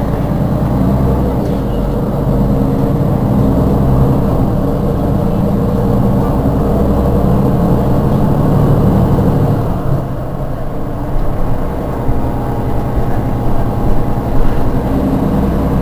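Mercedes-Benz Citaro G articulated city bus's diesel engine idling steadily while the bus stands still, with a few brief louder knocks near the end.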